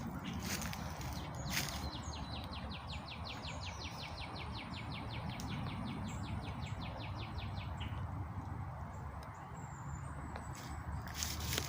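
Forest ambience: a bird gives a fast, even trill of about eight notes a second for roughly six seconds, starting about two seconds in, with a few faint high chirps from other birds. A steady low rumble runs underneath, and a few light knocks come near the start and near the end.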